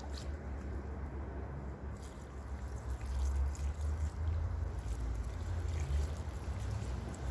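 Water being poured onto loose garden soil, with a steady low rumble underneath that grows a little louder about three seconds in.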